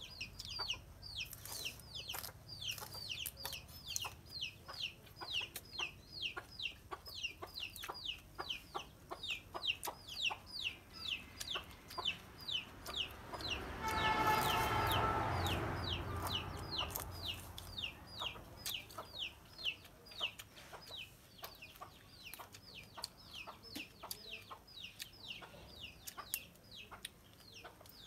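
Chickens calling: a steady run of high, falling peeps, about two to three a second, with one louder, longer call about halfway through.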